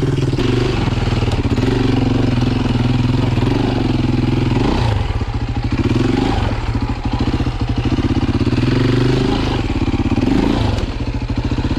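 Dirt bike engine running under throttle at a fairly steady pitch, with brief drops as the throttle is eased, about five seconds in and again near the end.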